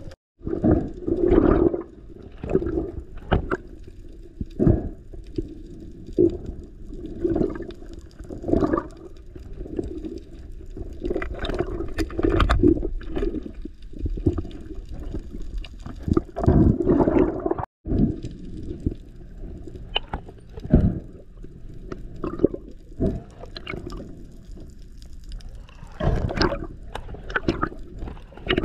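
Muffled underwater sound of a freediver swimming, heard through an action camera's housing: irregular swishes of moving water with scattered knocks and clicks, cutting out briefly twice.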